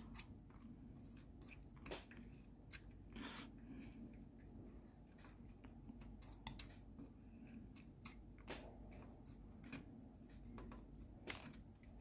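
Faint, scattered small metallic clicks and ticks as leftover connector pins are pulled from a circuit board one at a time with a hand tool, with a quick cluster of louder clicks about six and a half seconds in.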